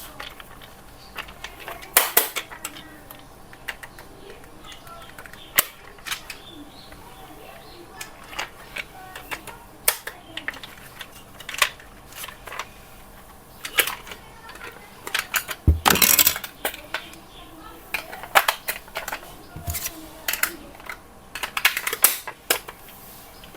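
Irregular clicks, taps and knocks of hard plastic toy parts and packaging being handled, with a louder burst of clattering about sixteen seconds in.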